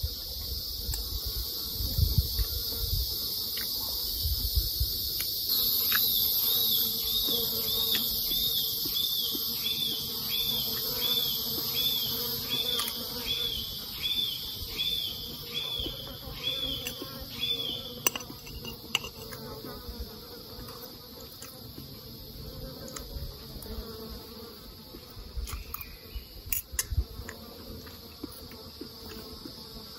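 Steady high-pitched insect chorus, with a run of evenly repeated chirping notes, about one and a half a second, from about six seconds in until about eighteen seconds. A few light clicks near the end.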